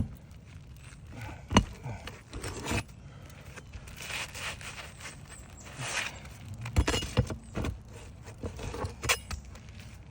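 Intermittent scraping and sharp clinks of hand tools and asphalt shingles being worked on a roof, while nails are pulled and a shingle is eased out from under its neighbours; one sharp click about a second and a half in is the loudest.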